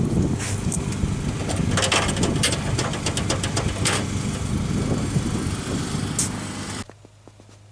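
An engine running with a loud, uneven rumble and scattered clicks and knocks over it, which cuts off suddenly near the end and leaves a faint steady hum.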